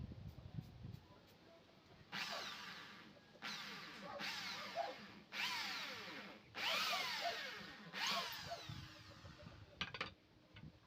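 A tool at work on the table build in six short bursts of about a second each, every one starting suddenly and then fading.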